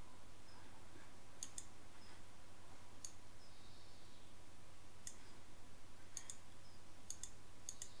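Computer mouse clicking: scattered single clicks and quick pairs of clicks, over a faint steady low hum.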